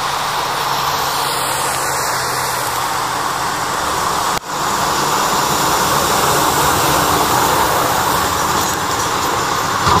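Snowplow trucks plowing past: a steady rushing of the blade scraping the road and throwing snow, with the truck's engine running underneath. The sound cuts off abruptly about halfway through and picks up again with a second plow.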